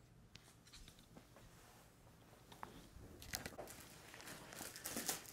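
A rabbit's paws patting on a woven rug as it hops: soft scattered taps and rustles that grow louder over the last two seconds.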